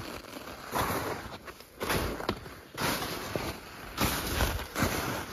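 Footsteps crunching through snow at a walking pace, about one step a second.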